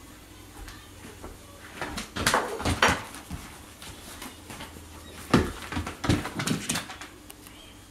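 Wombat joey scuffling and bumping about a person's feet on a rug, in two bouts of knocks and thumps: one about two seconds in, another from about five to seven seconds in.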